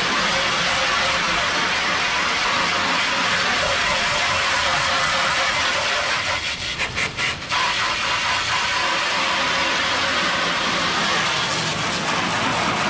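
Steady hiss of a garden hose's pistol-grip spray nozzle blasting a jet of water onto a pickup truck's painted body panel, bumper and tyre, rinsing off road grime. The spray stutters briefly a few times midway.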